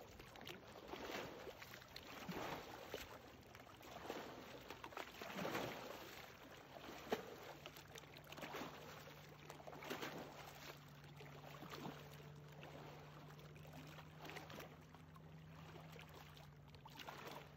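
Faint lake water, soft irregular splashes and lapping a second or two apart, with a faint low steady hum joining about halfway through.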